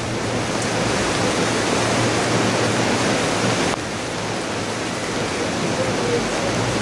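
Rushing floodwater of a river in spate: a loud, steady rush of fast-flowing water. It drops abruptly to a slightly lower level a little before four seconds in.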